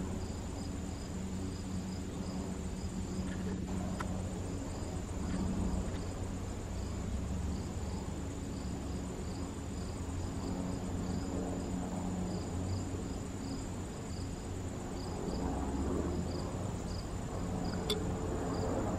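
Airbus A320 jet airliner climbing out overhead, its engines a steady distant low rumble. Crickets chirp in a steady run of short high pulses over it.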